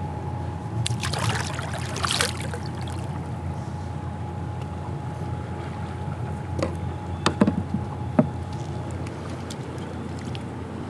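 Steady low rumble of wind and moving river water around a kayak. About one to two seconds in comes a splash as a smallmouth bass is let back into the water, and a few sharp knocks and clicks from the kayak and tackle come later.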